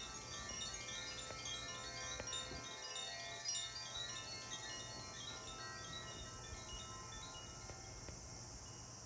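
Chimes tinkling: many overlapping high, bell-like notes struck in quick succession, thinning out toward the end.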